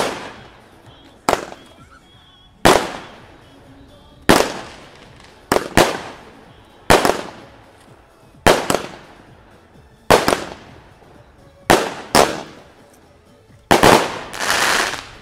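A 16-shot, 20 mm consumer fireworks cake (Behai 'Pangu') firing in sequence: sharp bangs about every second and a half, some in quick pairs, each with an echoing tail. Near the end two bangs come close together, followed by about a second of denser rushing noise.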